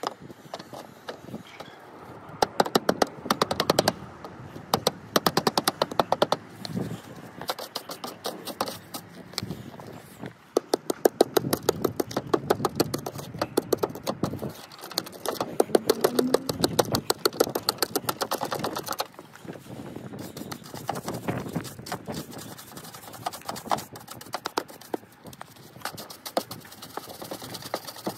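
Rapid scraping strokes, several a second, in runs of one to four seconds, as old mortar pointing is raked and brushed out of the brick joint above lead step flashing.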